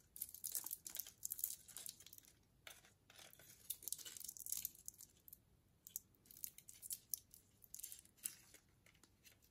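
Handling noise of a wristwatch being adjusted on the wrist: paper and plastic hang tags crinkling and rustling, with light clicks from the metal bracelet. The rustles come and go irregularly and thin out in the second half.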